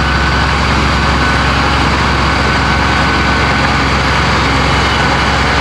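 Komatsu bulldozer's diesel engine running steadily.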